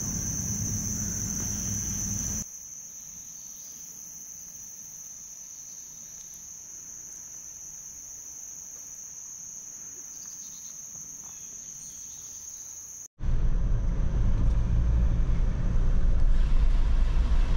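A steady, high-pitched drone of insects in the woods, with a low rumble under it for the first couple of seconds. About thirteen seconds in, it cuts abruptly to the loud, low rumble of a Jeep driving, heard from inside the cabin.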